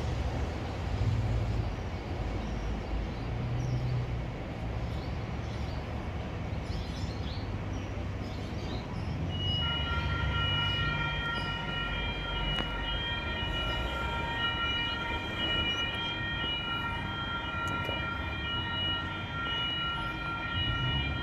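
Railway level crossing warning bells start ringing about halfway through and keep ringing steadily in several clear tones over a low rumble, signalling that a train is approaching and the boom gates are coming down.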